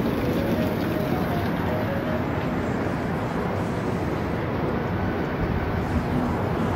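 A flooded river's torrent rushing, a steady, loud roar of water.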